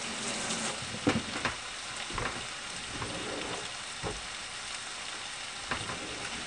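Turkey bacon and egg-soaked French toast frying on an electric griddle: a steady sizzling hiss, with a few brief clicks, the loudest about a second in.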